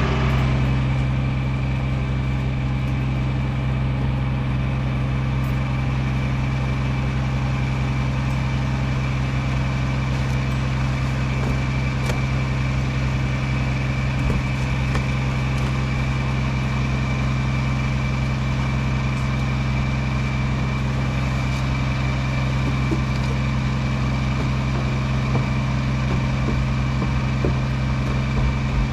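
A large engine idling steadily, its low hum unchanging throughout.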